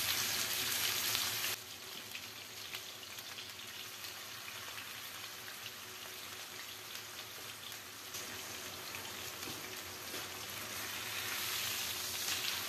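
Marinated beef steaks frying in oil on a flat tawa over a very low flame: a steady crackling sizzle. It drops in level after about a second and a half and grows louder again near the end.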